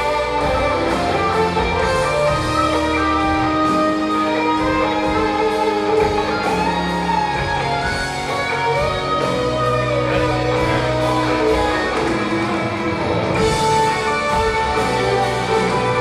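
Live rock band playing: electric guitar and keyboards holding sustained notes over bass and drums with a steady beat.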